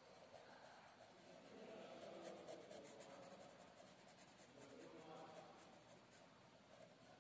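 Faint scratching of a felt-tip marker on a paper textbook page, many short back-and-forth strokes as it colours in a small slice of a drawn circle.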